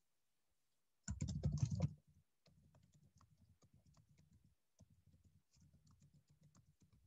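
Typing on a computer keyboard: a louder run of clicks about a second in, then a steady stream of faint, irregular keystrokes.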